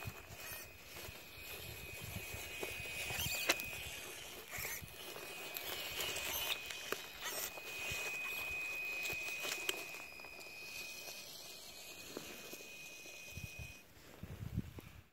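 WPL C24 RC crawler truck driving over dry leaves and twigs: crackling and snapping of debris under its tyres, with one sharp snap about three and a half seconds in, over the steady high whine of its small electric motor. The whine stops shortly before the end as the truck drives away.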